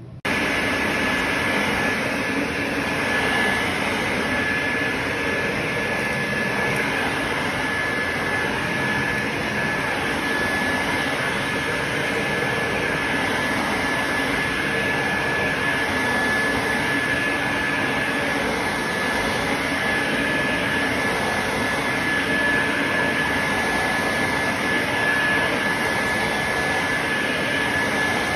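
Quantum X water-filtration upright vacuum cleaner switching on abruptly and running steadily with a constant high whine as it is pushed over carpet.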